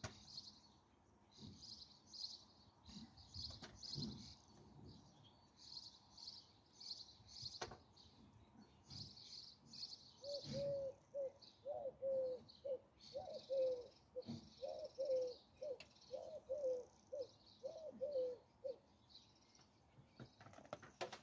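Faint birds chirping throughout, with a run of short, repeated lower-pitched calls from about halfway through until near the end.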